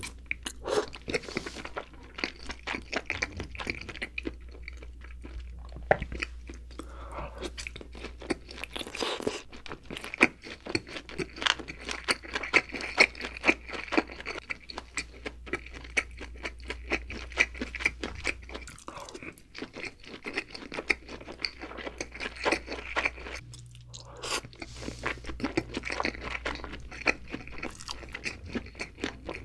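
Close-miked chewing of nigiri sushi: a dense, steady run of small wet mouth clicks and squelches, thinning out briefly twice in the second half.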